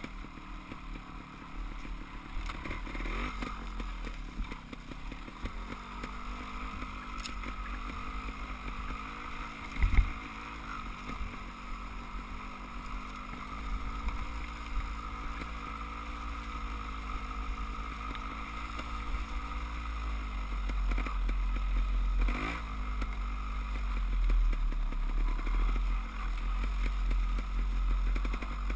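Dirt bike engine running along a trail, its pitch slowly rising and falling with the throttle, over low wind rumble on a helmet camera. A single sharp thump about ten seconds in is the loudest moment.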